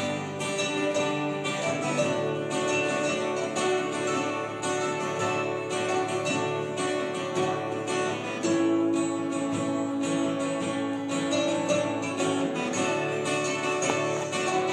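Two acoustic string instruments, guitar and mandolin type, picking a tune together in quick plucked notes.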